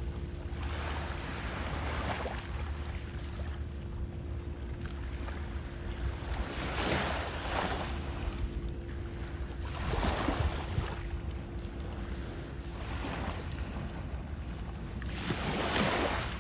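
Small waves washing onto a sea shore, each wash swelling up and fading, several times over, over a steady low rumble of wind on the microphone and a faint steady hum.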